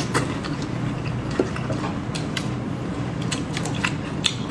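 Someone chewing grapes: irregular, quick crunching clicks from the mouth, with a couple of sharper ones about one and a half seconds in and near the end.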